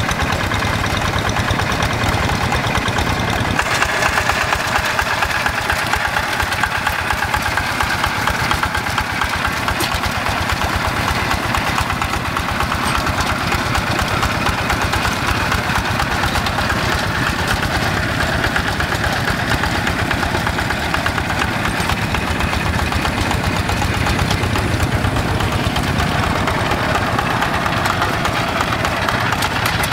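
Yanmar single-cylinder diesel engine of a Quick G1000 two-wheel hand tractor running steadily while working a flooded rice paddy, with a rapid, even chugging.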